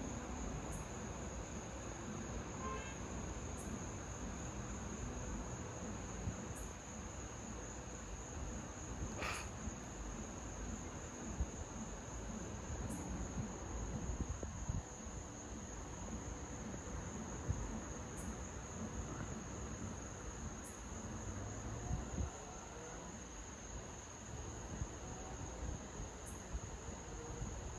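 Night insects trilling: a steady, high-pitched drone, over a low rumble.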